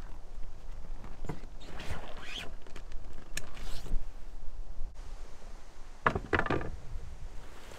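Rustling and light knocks of a dry bag being handled and set down into a canoe, then a short cluster of knocks about six seconds in as a wooden paddle is laid against the canoe's aluminium frame.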